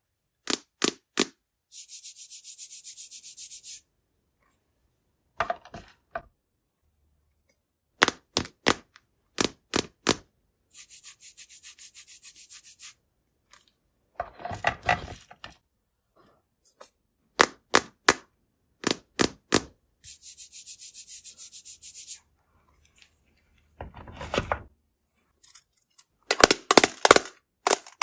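Crisp cracking clicks in quick groups of three or four, alternating with stretches of about two seconds of fast, dense ticking and two short crunches.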